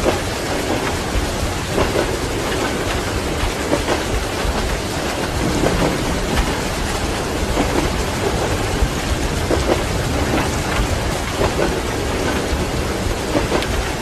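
Steady rain falling, mixed with a continuous low rumble from a moving train and thunder. Scattered drop ticks sound over the even rain noise.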